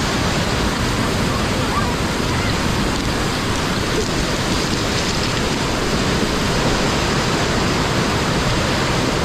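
Rushing floodwater: a loud, steady roar of fast-flowing water.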